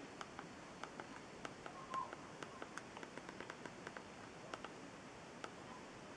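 Rapid light clicks of the Kindle 3's five-way controller being pressed over and over to move the browser cursor, irregular at about two to four a second. A short chirp sounds once about two seconds in.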